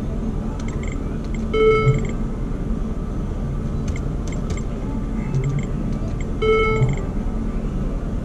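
Video poker machine dealing hands: two short electronic tones, about one and a half seconds in and again about six and a half seconds in, with quick clicks as cards are dealt, over a steady casino background din.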